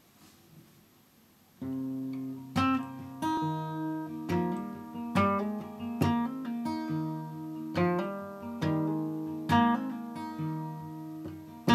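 Solo acoustic guitar starting about two seconds in, playing picked and strummed chords, each note ringing on after its attack.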